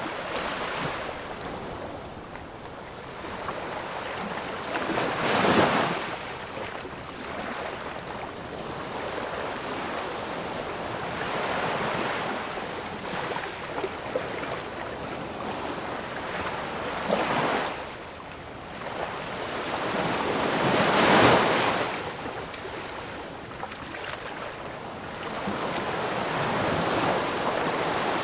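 Ocean waves breaking on a shore: a steady wash of surf with three louder crashes, the loudest about two-thirds of the way through.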